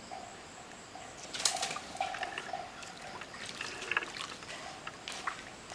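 Water splashing and trickling in irregular strokes, the loudest about a second and a half in, over a steady pulsing chirp of insects.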